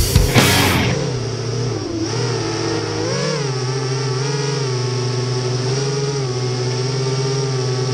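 FPV racing quadcopter's four brushless motors (Cobra 2204 2300KV) spinning 5045 tri-blade props, heard from the quad's own camera: a steady whine whose pitch dips about two seconds in and rises again a second later as the throttle changes.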